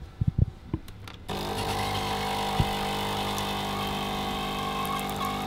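A few short knocks, then about a second in a coffee machine's pump starts and runs with a steady mechanical hum as coffee pours into the cup.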